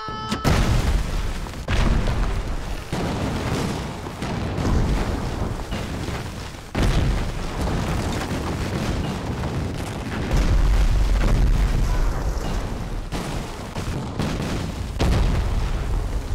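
A chain of heavy explosions set off by a plunger detonator. The first blast hits about half a second in and fresh blasts follow near 2, 7, 10 and 15 seconds, with deep rumbling and debris between them.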